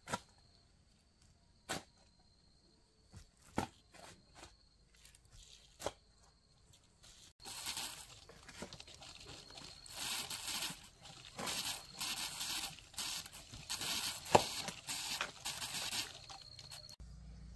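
A long-handled garden tool working soil and weeds. At first there are a few separate strikes and knocks, then from about halfway a run of quick, repeated scraping and tearing strokes through the dirt, with one sharper hit near the end.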